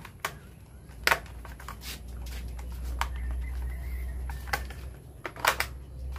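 Sharp clicks and knocks of a plastic wall switch assembly and its surface-mounted box being handled and fitted: about half a dozen scattered taps, two close together near the end, over a low rumble.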